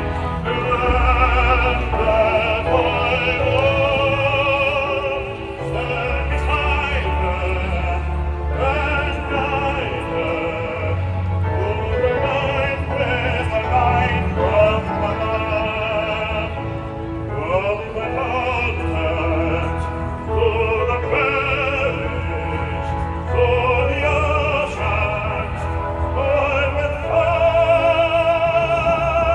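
Classical, opera-style singing with orchestral accompaniment; the voice holds long notes with a wide vibrato.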